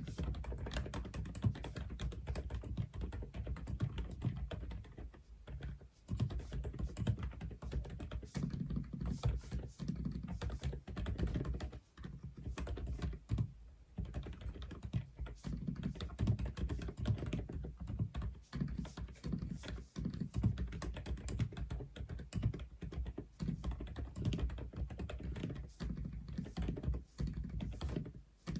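Fast typing on an Aula F87 (독거미) mechanical keyboard: a dense run of keystrokes that starts suddenly, with short pauses a few times along the way.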